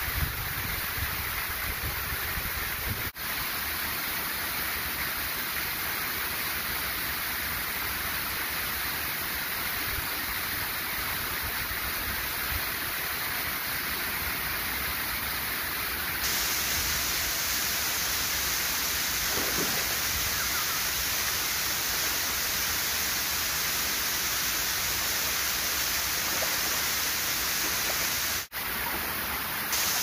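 Waterfall pouring, a steady wash of water noise. It gets a little louder and brighter about sixteen seconds in and cuts out for an instant twice, once about three seconds in and once near the end.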